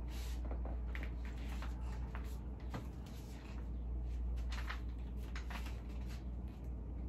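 Steady low hum with scattered soft rustles and light clicks from a person moving about and shifting their clothing.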